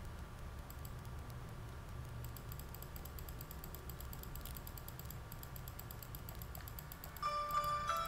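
Rapid light clicking, like typing on a keyboard, over a low steady hum. About seven seconds in, bright chime-like musical notes begin.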